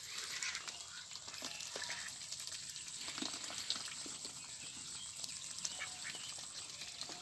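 A flock of ducks quacking, many short calls overlapping into a steady din.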